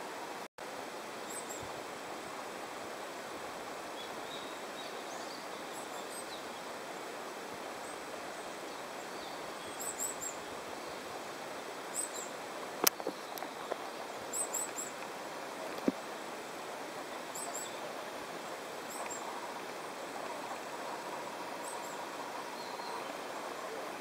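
Outdoor ambience: a steady hiss of background noise with small birds chirping high and intermittently, mostly in the first two-thirds. Two sharp clicks stand out about halfway through.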